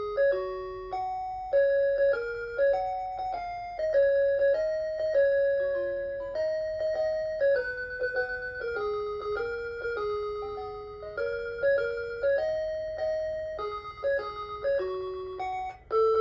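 Hitachi DW-237 melody alarm clock playing one of its children's-song tunes in bright electronic chime tones, a melody with a higher second part, each note dying away after it is struck. The tune breaks off briefly near the end.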